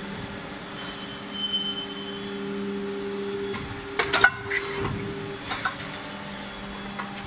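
Injection moulding machine running with a steady mechanical hum. About four seconds in comes a quick cluster of sharp metallic clanks, followed by a few lighter knocks.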